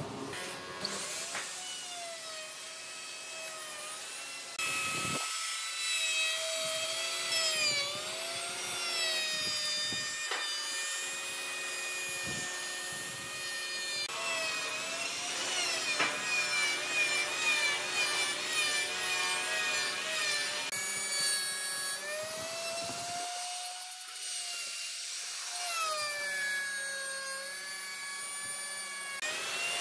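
Handheld electric plunge router running and cutting into a pine frame: a high whine whose pitch sags and recovers as the bit takes and releases load, breaking off abruptly several times between spliced passes.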